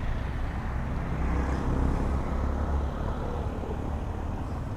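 Steady low vehicle engine rumble with road noise, no revving.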